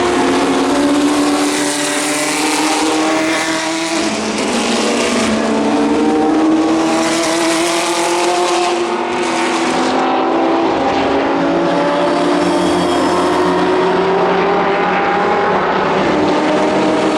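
Historic racing car engines running hard at full throttle, the engine note climbing slowly and steadily, with a drop in pitch about four seconds in before it climbs again.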